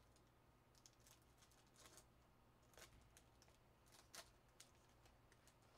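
Near silence broken by faint clicks and rustles of trading cards and card packs being handled, about half a dozen short ones, the loudest about four seconds in.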